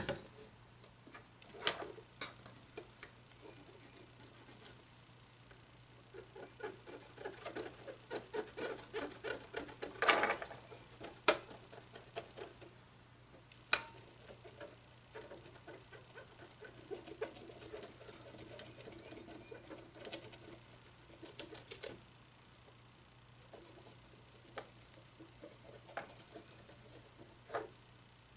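Cotton swabs scrubbing the gold-plated contacts of a cordless phone's keypad circuit board to clean off dirt: quick scratchy rubbing in spells, with a few sharp clicks and light knocks in between.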